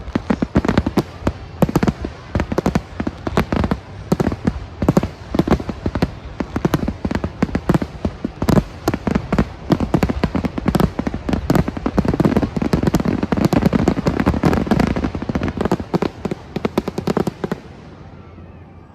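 Fireworks display exploding: a dense, rapid barrage of loud bangs and cracks, which stops suddenly near the end.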